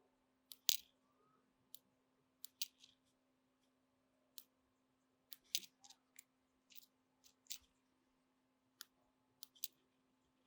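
Small metal hand tools clicking and snipping at irregular intervals, about fifteen sharp ticks in all, over a faint steady hum.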